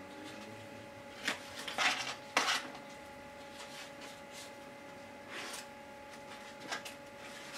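Butter being cut off a foil-wrapped block and dropped in pieces into a bowl of sugar: a few short foil rustles and soft taps, spread out, over a faint steady hum.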